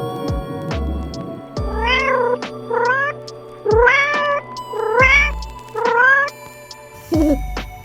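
Domestic cat meowing five times in quick succession, each meow rising then falling in pitch, followed by a lower falling call near the end, over background music with a steady beat.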